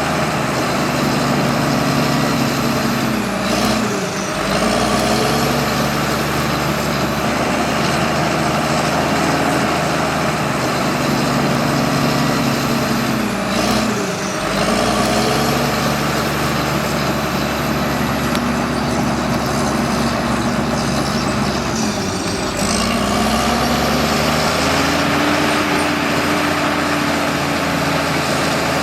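Bulldozer's diesel engine running steadily while working. Its pitch dips briefly and recovers three times, as the load or throttle changes.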